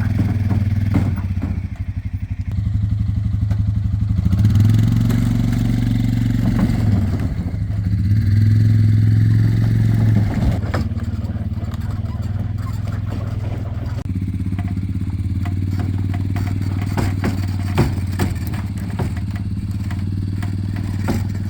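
Engine of a small motor vehicle running steadily, pulling the heavy chicken tractor into place; it gets louder twice, about four and eight seconds in, as it works harder. Scattered clattering and knocking from the towed frame in the second half.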